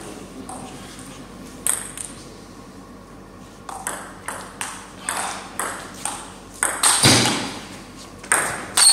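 Table tennis rally: the ball clicking back and forth off the bats and the table, about two hits a second. The hits get harder, with the loudest about seven seconds in and another pair near the end.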